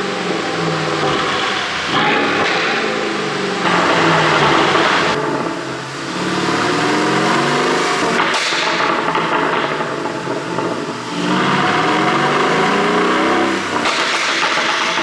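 Mercedes-Benz CLS63 AMG twin-turbo V8 revved up and down several times, with a run of exhaust pops and crackles as the revs fall, the overrun crackle of a pop-and-bang tune.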